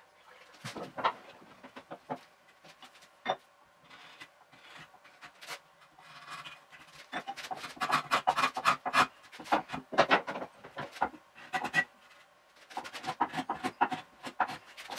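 Hand-tool work on wood played back at four times speed, so the strokes come quick and high-pitched: a few scattered knocks and scrapes at first, then a dense run of short rubbing strokes from about seven seconds in, with a short break near the end.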